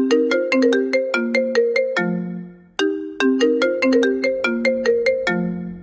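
iPhone ringtone playing: a rapid melody of short, bright struck notes, the phrase fading briefly and starting over about every three seconds.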